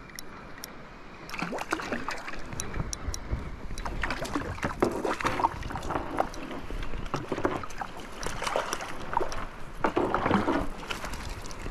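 Water splashing and sloshing in uneven bursts, with small knocks, around a small boat.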